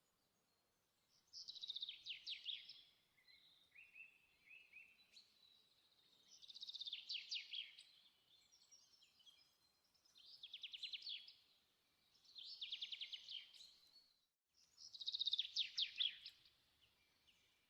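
A songbird singing: five fast trilled phrases, each about a second and a half long, a few seconds apart, with softer chirps in between.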